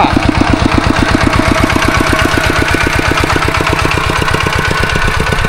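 Farm tractor engine running with a steady chugging beat of about ten pulses a second.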